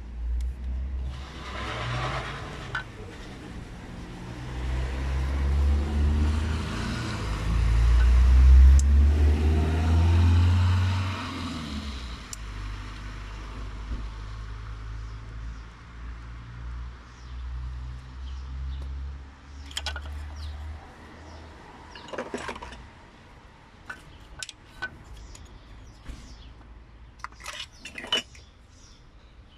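A strong, uneven low rumble, loudest in the first half, giving way to a run of sharp clicks and knocks as tools and plastic parts are handled in a car's engine bay while the air filter and its base are taken off.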